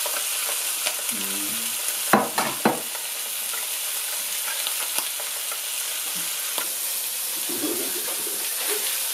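Yellowbelly flounder frying in a pan: a steady sizzle with scattered small pops and two sharp knocks a little over two seconds in.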